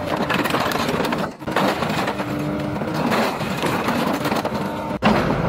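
Caterpillar hydraulic excavator working, its diesel engine running under repeated clanks and crunches as the bucket grips, lifts and tips a wrecked car's metal body onto its end.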